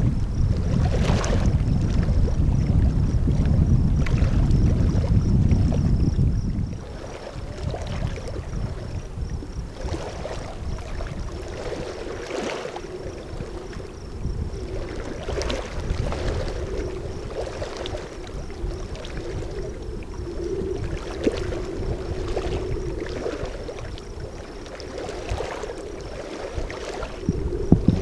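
Wind buffeting the microphone with a heavy rumble that stops abruptly about six and a half seconds in. After that, soft splashes of water every second or two.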